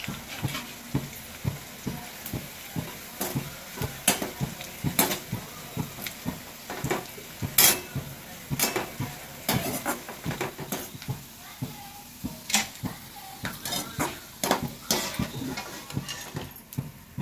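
Metal slotted spoon stirring slivered almonds frying in ghee in a metal kadhai: irregular scraping clinks and knocks of the spoon against the pan over a faint sizzle.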